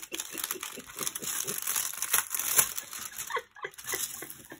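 Diamond painting canvas and its plastic cover film rustling and crinkling under hands pressing and smoothing it flat, with many small crackles.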